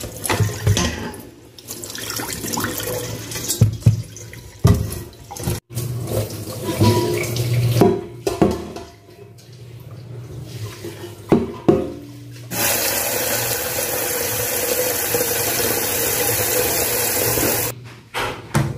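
Kitchen tap running into a stainless steel pot, with irregular splashing and the pot knocking as it is rinsed and handled. About two-thirds of the way in, a steady full stream runs for about five seconds as the pot fills, then stops sharply.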